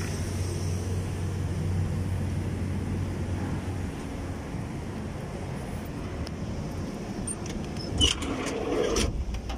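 Heavy construction machine's engine running steadily with a low hum, which eases about four seconds in. Near the end come sharp knocks and rubbing from the phone being handled.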